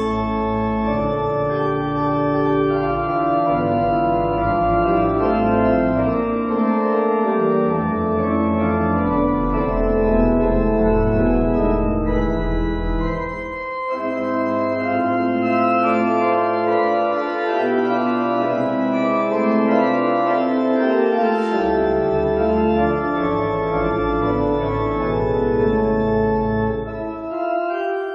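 Organ playing slow, sustained chords over deep held pedal notes, a closing voluntary after the final blessing.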